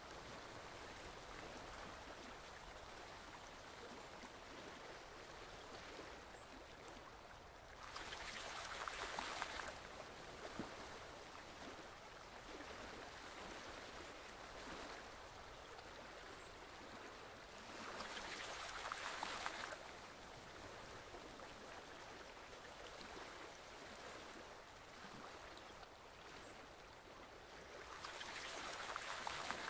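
Forest stream flowing steadily, its water noise swelling louder for a couple of seconds about every ten seconds, three times.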